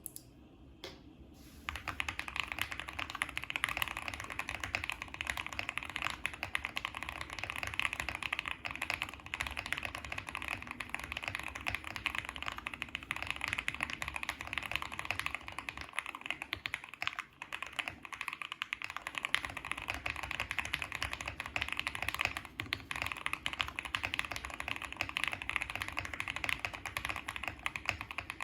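Fast, continuous typing on a Qwertykeys QK65 mechanical keyboard with lubed JWK Alpaca linear switches, a POM plate, Cherry-profile PBT keycaps and a foam-filled case: a dense stream of key clacks. The typing starts about a second and a half in and breaks off briefly a little past the middle.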